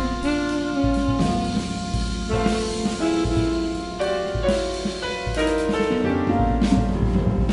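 Free jazz from a quartet of alto saxophone, trumpet, piano and drum kit: horn lines hold long notes that step from pitch to pitch over piano and drums, with a deep, steady low end.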